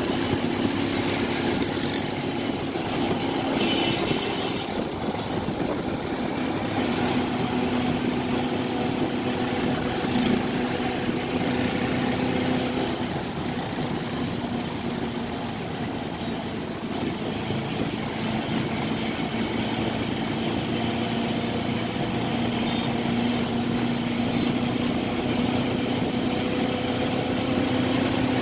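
Steady engine hum and road noise from a vehicle driving through city traffic, with auto-rickshaws, motorcycles and cars passing close by.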